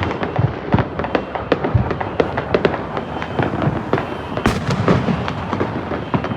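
Fireworks and firecrackers going off all around, a dense, continuous run of cracks and pops with a louder bang about four and a half seconds in.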